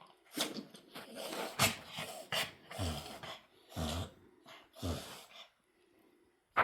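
A dog sneezing in a rapid run of about ten short, noisy sneezes and snorting breaths, one after another.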